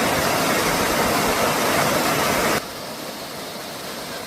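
Steady rushing noise of falling water from a waterfall, which drops suddenly to a quieter level about two and a half seconds in.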